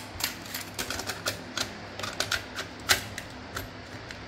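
Irregular plastic clicks and clacks as an audio cassette is fumbled into the loading slot of a small car-stereo cassette deck, the loudest knock about three seconds in.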